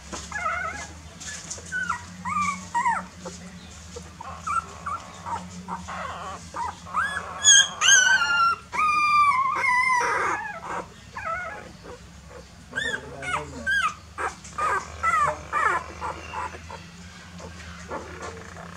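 A litter of young puppies whimpering and squealing, many short cries rising and falling in pitch and overlapping, loudest about halfway through: hungry puppies crying for milk.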